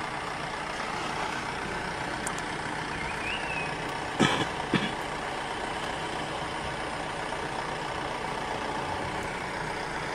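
Safari jeep engines idling steadily close by. About halfway through come two short, loud knocks, half a second apart.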